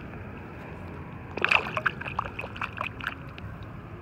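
A small croaker released back into the river: a splash about a second and a half in, followed by a second or so of quick smaller splashes and drips, over a steady background hiss.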